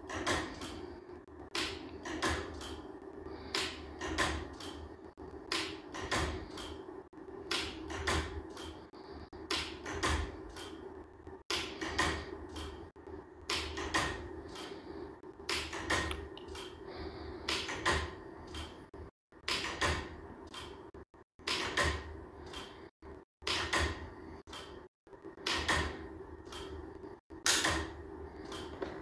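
A steady low hum with sharp mechanical clicks or knocks about once a second, unevenly spaced.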